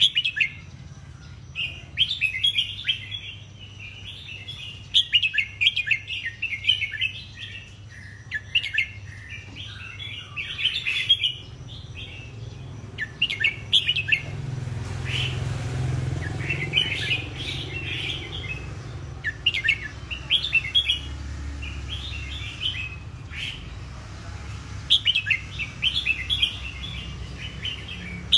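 White (leucistic) red-whiskered bulbul singing in its cage: short, bright warbled phrases repeated every second or two with brief pauses.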